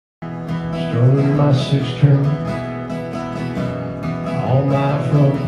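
Country-style music played on guitar, starting abruptly out of silence about a quarter of a second in.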